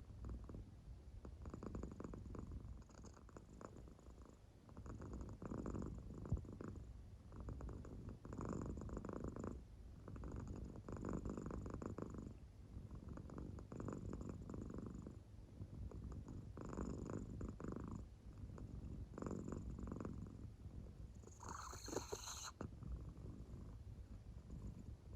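American Shorthair cat purring in deep sleep: a soft low rumble that swells with each slow breath, about every two and a half seconds. Near the end comes one brief, brighter, hissier sound.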